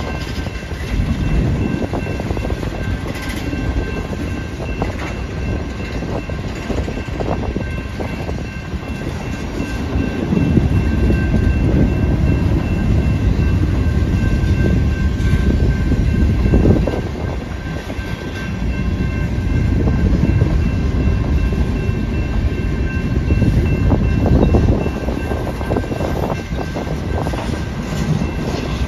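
Freight train's boxcars rolling past close by, steel wheels on rail giving a continuous rumble and clatter that swells and eases as the cars go by.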